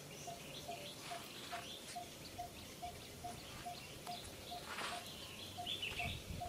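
Short high animal chirps and squeaks, a few scattered calls with the clearest about five seconds in. A soft, even tick repeats a little over twice a second beneath them.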